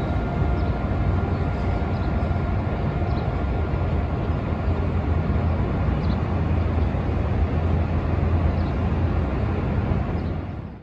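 Steady low outdoor rumble with a faint steady whine over it during the first few seconds.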